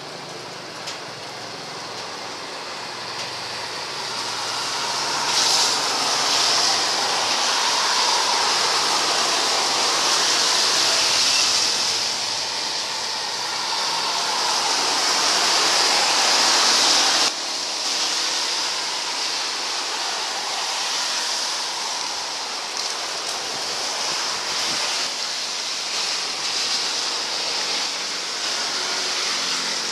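Jet airliner engines on landing approach: a steady rushing engine noise that builds for about a dozen seconds, drops suddenly partway through, then carries on at a lower level.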